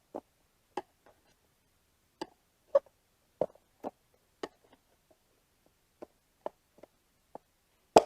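Irregular clicks and knocks as a flathead screwdriver levers a rubber stroller tire back over its wheel rim. The sharpest knock comes near the end.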